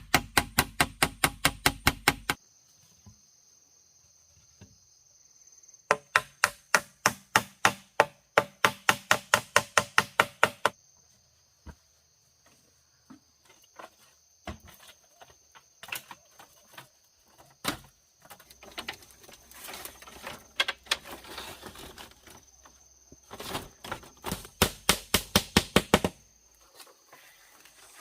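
Rapid runs of sharp tool strikes on wood, about four a second, in three bursts of a few seconds each, with scattered softer knocks and handling between. A steady high insect buzz sits underneath.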